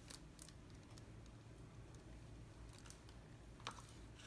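Near silence: room tone with a few faint, short clicks, the clearest near the end.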